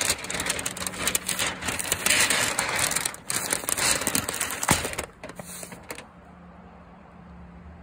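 A sheet of Tyvek housewrap crinkling and crackling loudly as a hand grips it and peels it back from the plywood. It stops about six seconds in, leaving only a faint steady hum.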